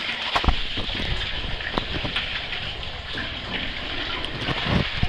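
Cave stream water rushing and splashing around a caver wading through a flooded passage, steady, with a few short bumps, the strongest about half a second in and near the end.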